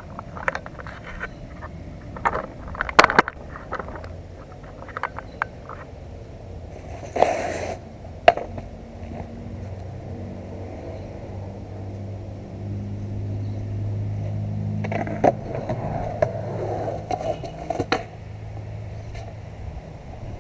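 Skateboard clacks and knocks on concrete: scattered sharp hits, with a loud crack about three seconds in and another about eight seconds in. Through the middle, the low engine hum of a passing motor vehicle swells and fades.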